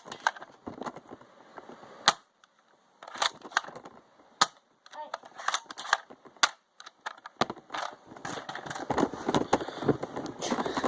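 Nerf blasters firing foam darts: a string of sharp snaps and clacks at irregular intervals, some close together in pairs or triplets. From about seven seconds in, a denser clatter and rustling of handling and movement.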